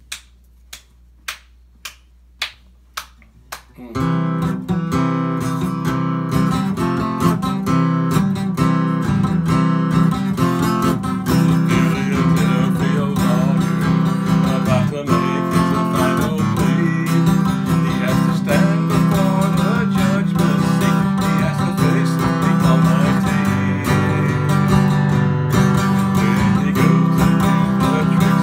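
About seven sharp hand clicks, roughly two a second, count in the tempo. Then an acoustic guitar is strummed steadily from about four seconds in, with a man singing over it.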